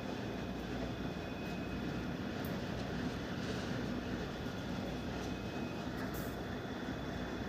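Westinghouse 2-ton split AC indoor unit's blower fan running steadily in heat mode: an even rush of air with a low hum and a few faint ticks. It runs without scraping, because the ice the blower had been touching has melted away.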